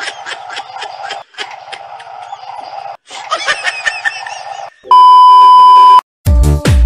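A busy run of chirping, clicking sound effects, then a loud steady test-tone beep for about a second as the picture goes to TV colour bars. A short harsh, buzzing glitch noise follows.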